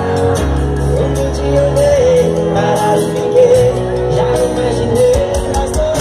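A live band plays amplified music with a singer's voice over bass and drums, heard from within the crowd.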